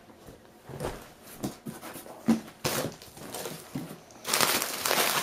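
Cardboard box flaps being opened and handled, with scattered bumps and scuffs, then a continuous crinkling rustle of bubble wrap being handled about four seconds in.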